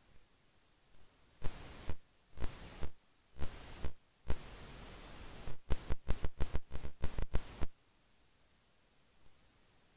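Amplified hiss from the Sound Blaster Play! 3's microphone input with nothing connected: the card's high self-noise. It comes in abrupt bursts with a sharp click at the start and end of each, first a few half-second ones, then many short ones in quick succession, with near silence between.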